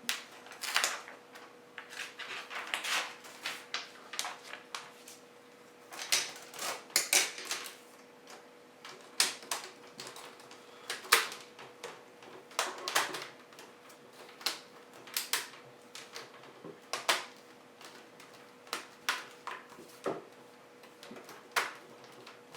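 Hard plastic laptop parts being handled and pressed together: irregular sharp clicks and taps, some in quick clusters, over a faint steady hum.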